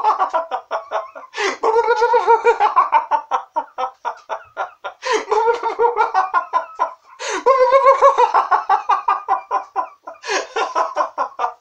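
A man laughing out loud in deliberate, exaggerated guffaws: rapid ha-ha-ha runs in about four long bouts, with short breaks for breath between them. This is the forced belly laugh that closes a laughter-therapy exercise.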